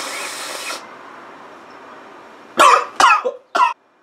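A man takes a long sniff of a freshly cut red onion held to his nose, then coughs sharply three times about two and a half seconds later, reacting to the onion's sharpness.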